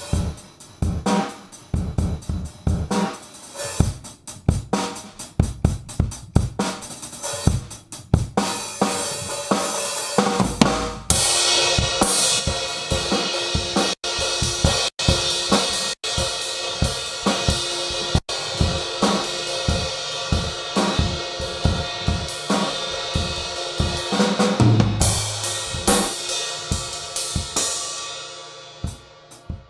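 Acoustic drum kit played live: separate kick, snare and tom strokes for about the first ten seconds, then denser playing with cymbals ringing throughout, which fades out near the end.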